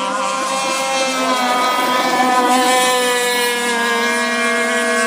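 Two radio-controlled racing speedboats running flat out, their motors making a steady, high-pitched drone of several overlapping tones that drift slightly up and down in pitch.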